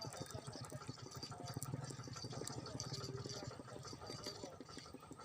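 A small engine running steadily with a fast, even chug, alongside the sound of water.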